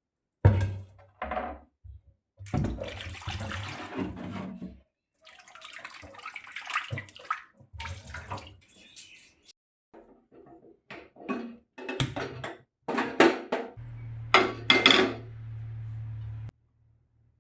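Kitchen work sounds: running and splashing water with pots and dishes clattering, in irregular bursts separated by short pauses.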